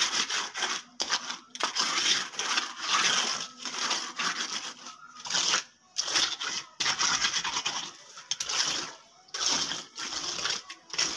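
Hand trowel scraping and rubbing across a freshly cast wet concrete slab while smoothing its surface, in repeated uneven strokes with short pauses.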